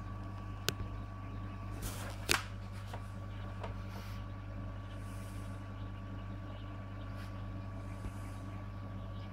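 Steady low electrical hum of marine aquarium equipment, with a faint thin whine above it. A sharp click comes under a second in and a louder one about two seconds in.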